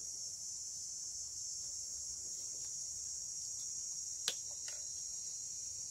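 Steady high-pitched chorus of insects shrilling in the vegetation. About four seconds in, a metal spoon clicks sharply against the bowl, with a fainter tap just after.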